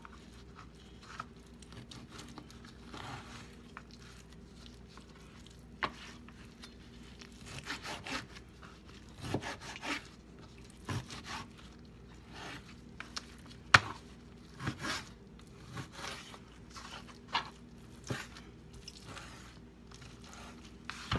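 Kitchen knife cutting raw chicken breast on a plastic cutting board: irregular taps of the blade on the board and short slicing and scraping sounds, one sharper knock about two-thirds of the way through.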